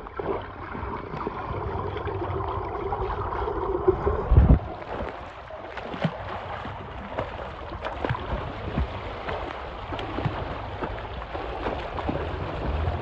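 Pool water splashing and churning as a swimmer does front crawl close by, with short sharp splashes from the arm strokes and kicks. For the first four seconds or so the sound is muffled, heard from underwater, ending in a loud thump.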